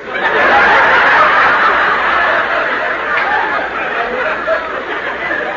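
Radio studio audience laughing long and hard at a gag. The laugh swells at once, peaks about a second in and then slowly tapers off.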